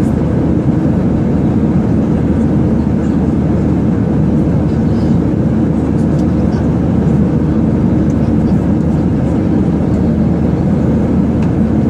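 Airliner cabin noise in flight: a steady, low, even rush of engine and airflow noise with no change in level.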